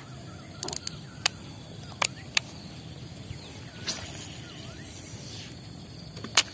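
Sharp, irregular clicks from a baitcasting reel and rod being worked as a lure is twitched back: a quick cluster about half a second in, single clicks over the next few seconds, and the loudest one near the end, over a faint steady outdoor hush.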